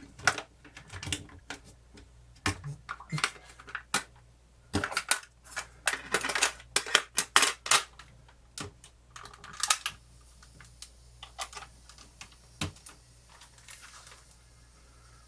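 Plastic clicks, taps and rattles of a small portable cassette player being handled and its plastic casing put back together, with batteries being fitted. The clicking is dense at first and thins to a few taps after about ten seconds, over a faint steady hiss.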